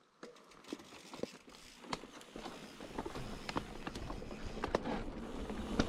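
Irregular clicks and scuffs of footsteps and mountain bikes being handled on a dirt trail, with a low rumble building from about two seconds in.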